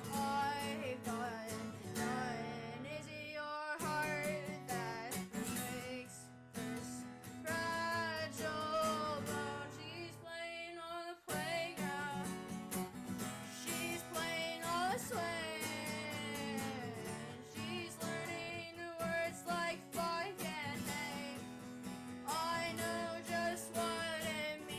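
A song played on acoustic guitar with a voice singing over it, the strumming pausing briefly a couple of times.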